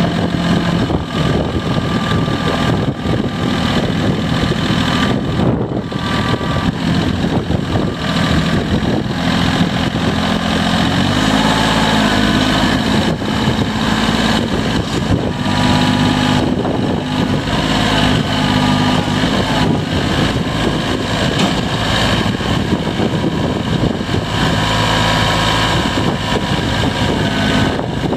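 Bobcat CT122 compact tractor's small diesel engine running steadily as the tractor is driven and its front loader worked. The engine note rises about eleven seconds in, holds for several seconds, and falls back about twenty seconds in.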